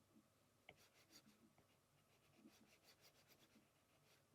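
Near silence, with faint scratches and light taps of a stylus sketching on a tablet screen, a short run of small strokes just past the middle.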